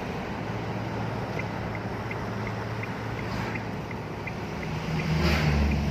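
Cabin noise of a 2022 Isuzu D-Max pickup rolling slowly, with steady engine and road sound and a turn-signal indicator ticking about three times a second. A louder low rumble swells near the end.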